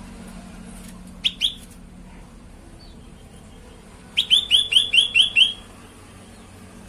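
Cucak kelabu (percang) calling: two short, sharp chirps about a second in, then a quick run of about seven chirps a few seconds later.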